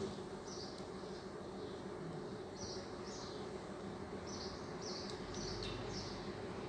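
A small bird chirping: a dozen or so short high chirps, each dropping slightly in pitch, at irregular intervals, over a faint steady low hum.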